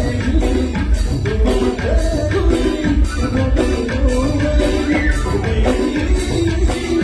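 Live band music played loud through a stage sound system, with a quick, steady drum beat and a male singer singing into a microphone.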